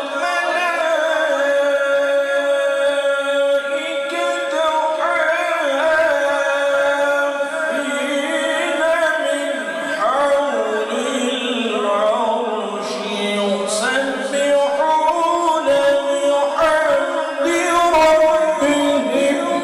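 A man's unaccompanied solo voice through a microphone in melodic religious recitation, holding long, ornamented notes with short breaks between phrases.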